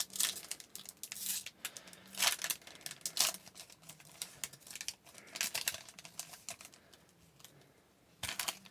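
A trading-card pack wrapper being torn open and the cards handled: a series of short tearing, crinkling rustles about a second apart, with a last one near the end.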